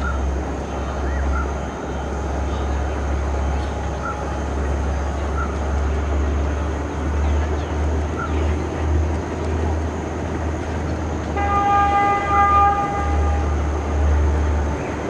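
Train running with a steady low rumble. It sounds its horn once, a chord of several tones lasting about two seconds, a little past the middle.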